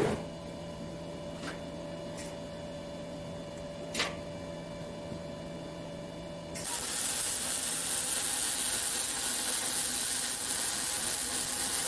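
A steady electrical hum with a few sharp clicks. Then, about six and a half seconds in, a welding arc strikes and runs as a steady crackling hiss.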